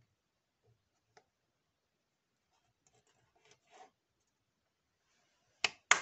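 Two sharp hand claps about a quarter second apart near the end, clapped to trigger a homemade transistor clap switch. Faint rustling and handling noises come before them.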